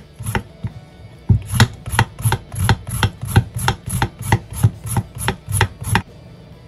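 Knife peeling the skin off a sweet potato on a wooden cutting board: quick, even scraping strokes, about three a second, starting about a second in, each ending with a light knock on the board.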